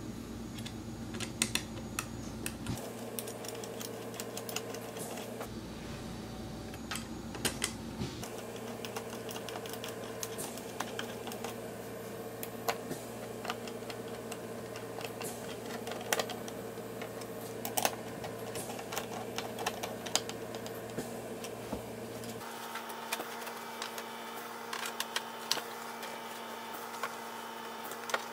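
Hand screwdriver driving a screw through a metal brace into a wooden rail: irregular small clicks and ticks of the bit, screw and metal, over a steady low hum.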